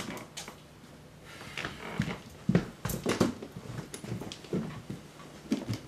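Footsteps on a wooden floor with irregular knocks and the rustle of clothing as a coat is handled on a door hook, in a small room.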